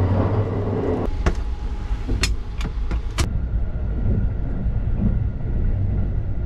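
Steady low rumble of the Sunrise Seto sleeper train running, heard from inside a berth compartment, with a few sharp clicks between about one and three seconds in.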